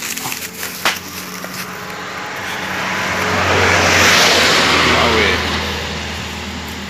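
A car passing by on the road, its noise swelling to a peak about four seconds in and then fading away.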